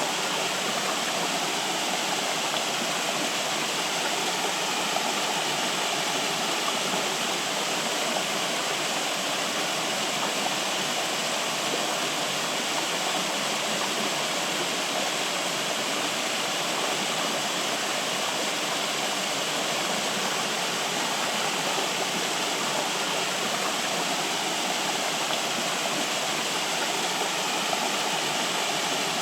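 Flowing water rushing steadily and evenly, without change or break.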